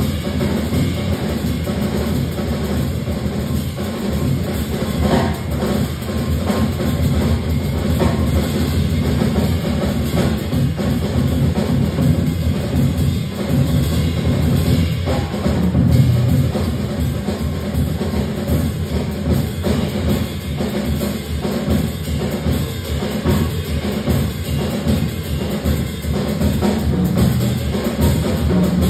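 Jazz drum kit solo played live, a dense and unbroken flow of drum and cymbal strokes, heard from the audience in a concert hall.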